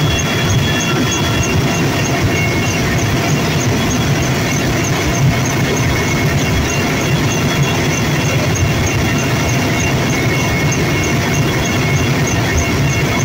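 Helicopter in flight, heard from inside the cabin at the open door: steady engine and rotor noise with rushing wind and thin, steady high whining tones.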